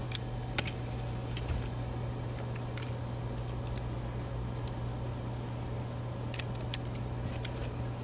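A steady low hum, with a few light clicks and taps scattered through it.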